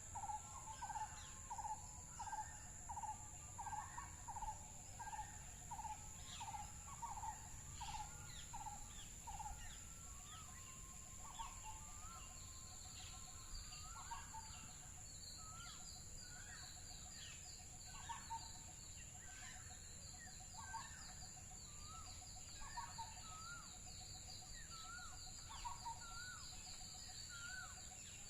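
Several birds calling: a repeated two-note call about twice a second for the first ten seconds, then scattered chirps and a fast high trill from about twelve seconds on. Behind them runs a steady high-pitched insect buzz.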